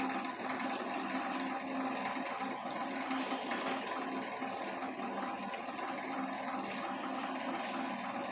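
A gram-flour-battered bread pakora deep-frying in hot oil in a small kadhai: steady sizzling and bubbling.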